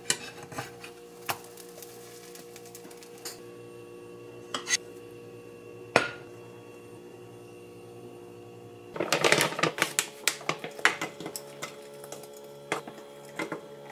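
Metal utensils clinking and tapping against ceramic cookware: scattered taps, a loud knock about six seconds in, then a quick run of clinks from about nine to eleven seconds in as berries are spooned onto a dish, over a steady hum.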